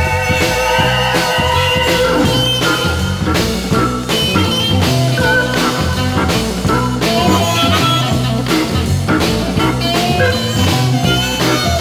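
Instrumental stretch of a mid-1960s blues/R&B 45 rpm record with no singing. A band plays a steady beat over bass, with a lead instrument playing short bending phrases.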